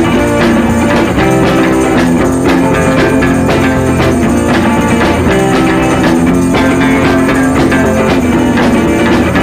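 Upbeat background music with guitar and a steady drum beat.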